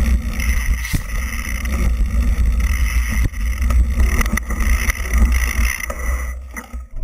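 Full-suspension downhill mountain bike (a Nukeproof Scalp) riding fast down a rough trail: steady tyre rumble and wind on the microphone, with frequent sharp clacks and rattles from the bike over rocks and roots. The noise dies down just before the end.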